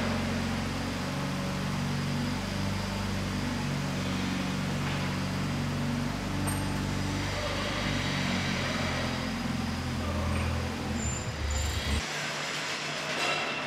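Combilift multidirectional forklift's engine running under load, its low hum shifting in pitch every second or so as it moves with steel beams; the hum stops abruptly near the end.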